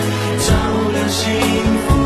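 Live pop band music with bass and drum hits about every half second, and a male voice singing into a handheld microphone.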